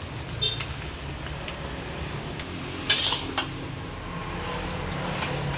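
Metal spatula clinking and scraping against a metal wok as water spinach is stir-fried, over a low steady frying noise. A few sharp clanks stand out, the loudest about three seconds in.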